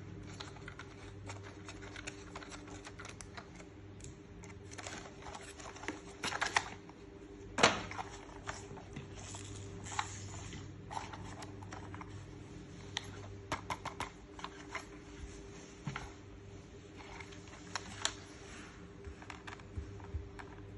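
Scattered clicks, taps and brief rustles of a plastic toy and its packaging being handled, with one louder knock about seven and a half seconds in, over a steady low hum.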